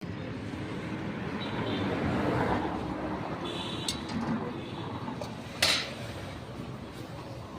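Busy roadside street noise with traffic, and a short sharp clatter about five and a half seconds in.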